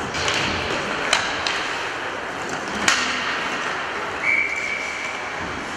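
Youth ice hockey play in a rink: skates scraping the ice, with two sharp clacks of stick on puck about one and three seconds in. A referee's whistle blows one short steady blast a little past the four-second mark.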